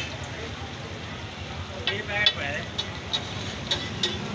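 Egg frying around burger buns on a flat iron griddle, a steady sizzle, with several sharp clicks of a metal spatula against the griddle.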